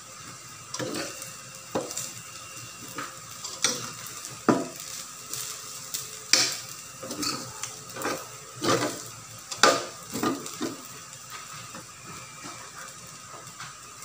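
Metal spatula scraping and clinking against a stainless steel wok as fried rice is stirred and tossed, in irregular strokes over a low frying sizzle. The strokes thin out about three seconds before the end.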